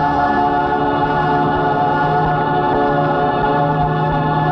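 Closing music: a choir singing long held chords.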